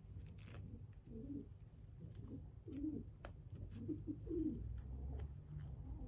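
Feral pigeon giving a series of low, soft coos, with faint clicks from handling.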